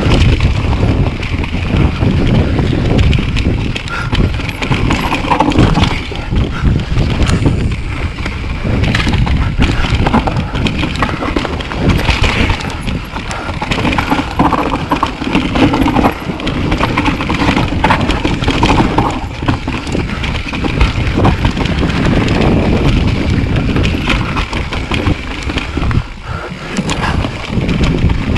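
Mountain bike riding down a dirt forest trail: tyres rolling over dirt and roots, with many short knocks and rattles from the bike over bumps, and wind buffeting the microphone.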